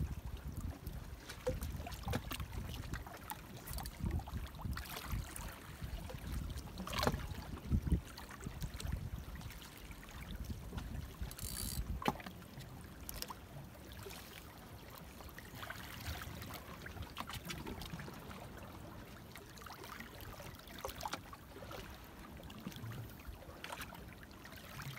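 Seawater lapping and trickling against the rocks of a stone breakwater, with a few sharp knocks along the way.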